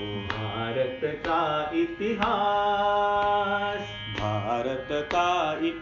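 Singing of a Hindi patriotic song (RSS geet) with musical accompaniment: a voice draws out long, wavering notes.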